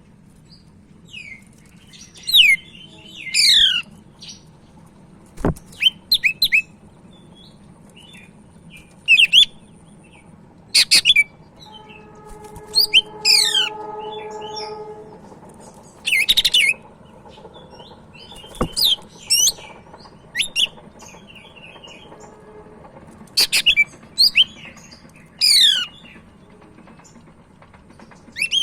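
Cucak ijo (green leafbird) singing in short, loud bursts of rapid, steeply falling whistled notes, repeated every one to three seconds. This is the bird's 'tembakan' shooting song. Two sharp knocks and a steady droning tone of a few seconds come in partway through.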